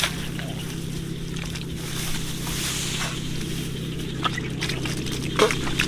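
Water sloshing and splashing over a steady low hum, with a few sharp splashes, the loudest near the end.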